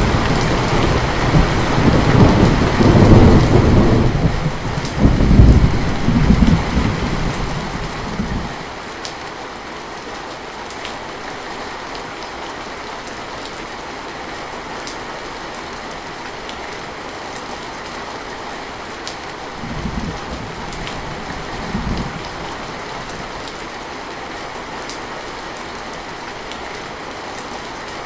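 Heavy rain falling steadily, with thunder rumbling loudly through the first eight seconds and then dying away. Later there are two brief low rumbles, a couple of seconds apart, under the even hiss of the rain.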